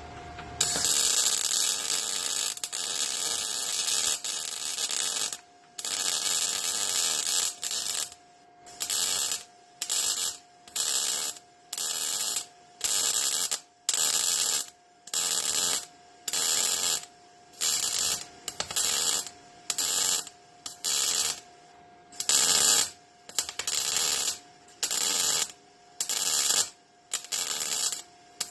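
Electric welding on car floor-pan sheet metal: the arc crackles in one long bead of several seconds, then a shorter one, then a steady run of short stitch-welding bursts about once a second. A steady electrical hum from the welder sounds between the bursts.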